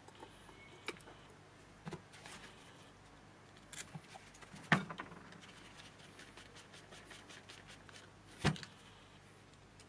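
Light clicks and knocks of plastic and metal parts of a BMW auxiliary coolant pump and heater valve being handled and fitted together, with two louder knocks about halfway and near the end and a quick run of light ticks in between.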